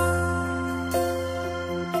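Instrumental break in a slow love ballad: sustained chords over a held bass, a new chord struck about once a second, with no singing.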